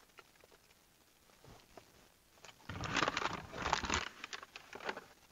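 Paper takeaway bag crinkling and rustling as it is handled, a dense burst lasting just over a second, starting a little under three seconds in, followed by a few smaller rustles.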